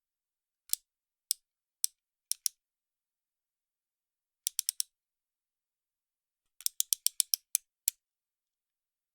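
Utility knife blade being slid out, its slider clicking through the detents: a few single clicks about half a second apart, then a quick group of about four, then a fast run of about ten clicks.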